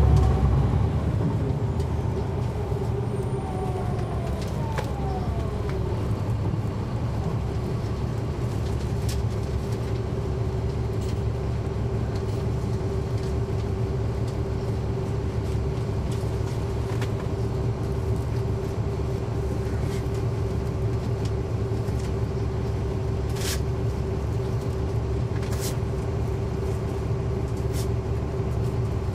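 Cabin sound of a NABI 40-SFW transit bus heard from near the back, its Caterpillar C13 ACERT six-cylinder diesel engine running with a heavy low rumble and a constant whine. It is louder for about the first second, with pitches sliding down over the first few seconds, and a few sharp clicks or rattles come later.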